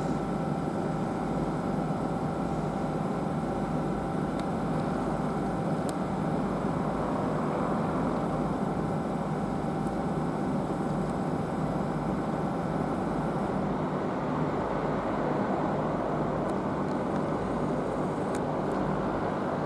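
Steady rumbling train noise at a station, with a faint high whine that fades out about two-thirds of the way through.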